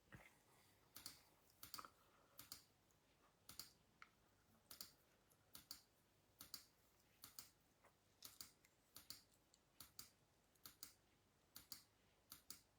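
Faint, scattered clicks at a computer, about one or two a second, in near silence.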